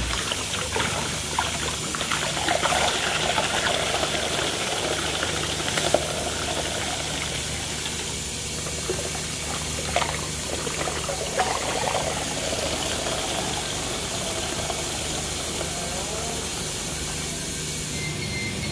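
Makgeolli poured into a large metal basin of frothy rice-wine bread batter, the liquid splashing and gurgling over a steady hiss and low hum.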